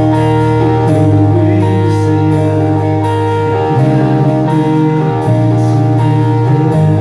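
Live band playing amplified electric guitars and electric bass over drums, with cymbal hits on a steady beat about twice a second. The bass holds each note for a second or two before moving to the next.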